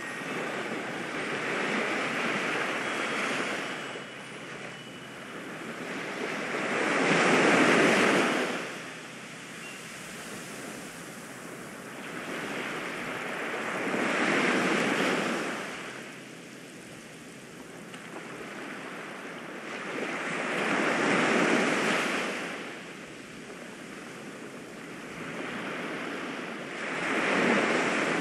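Ocean surf: waves breaking and washing in, rising and falling in surges about every six to seven seconds, five times over, the loudest surge a little before the middle.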